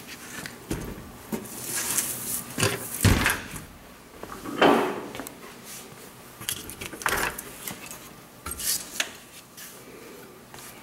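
Sheet-metal access doors and latches on a diesel generator's housing being handled and opened: a series of metal clanks, clicks and scrapes, with a heavy thump about three seconds in and another loud clank near five seconds.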